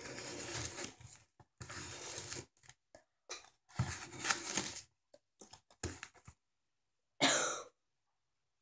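A person coughing several times with a mouthful of ground cinnamon: a run of short, noisy coughs and breaths, with a single louder cough about seven seconds in.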